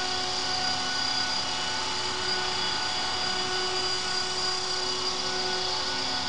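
CopterX 450 Pro electric RC helicopter hovering on a test flight: a steady, unchanging high whine from its motor and drivetrain over the whir of the rotor blades.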